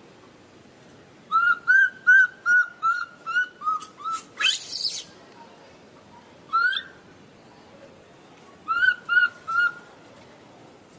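Infant macaque giving short, high chirping calls, the cries of a frightened baby: a quick run of about nine a second or so in, a louder rising squeal around four and a half seconds, one chirp near the middle, and three more near the end.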